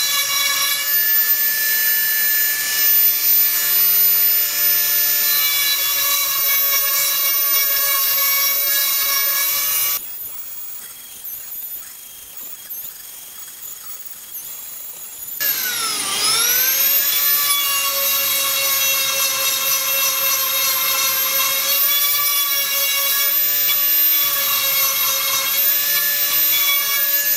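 Dremel rotary tool with a small grinding stone bit sharpening the steel teeth of a bandsaw blade: a high, steady whine. It drops away about ten seconds in and comes back about five seconds later, its pitch dipping briefly and climbing back as it starts up again.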